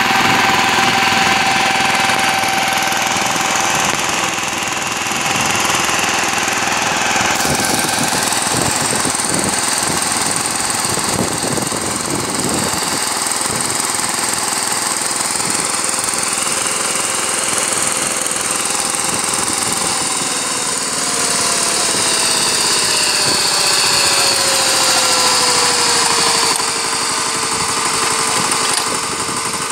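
VST Shakti 130 DI power tiller's single-cylinder diesel engine running steadily under load while its rotary tines churn the soil. There is some scattered knocking around ten seconds in, and the engine note sinks a little lower about two-thirds of the way through.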